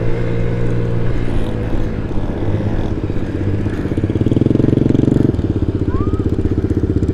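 Honda Ruckus 49 cc four-stroke scooter engine running at low speed on a dirt track. About four seconds in, its note turns louder and evenly pulsing.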